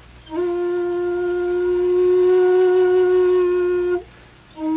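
Solo wind-instrument music: one long held note of about three and a half seconds, sliding up slightly as it starts, with a short pause before and after.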